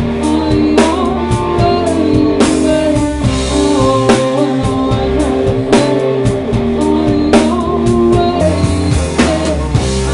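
Rock band playing live: drum kit with cymbal crashes about every second and a half, electric guitar and bass, and a woman singing, all picked up by the camera's own microphone in the room.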